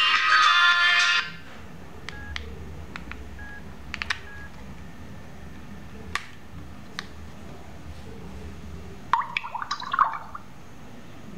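Flip phone keypad in use: music stops abruptly about a second in, followed by a few short electronic key beeps and sharp plastic clicks from the buttons and hinge. A burst of clicking and rattling near the end as the phone's plastic case is handled.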